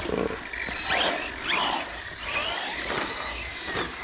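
Remote-control cars running over a pump track, their motors whining up and down in pitch with repeated throttle bursts, about once a second, over a steady rolling hiss.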